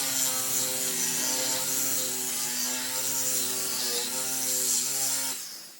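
Drilling machine with a 50 mm core bit running and grinding into 10 mm glass: a steady motor hum under a gritty, hissing grind, which stops about five seconds in.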